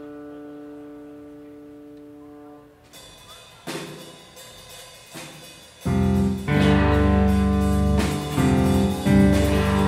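A rock band's held chord rings out and fades, a few lone drum hits follow, and then the full band comes in loud about six seconds in, with drum kit, bass and electric guitars.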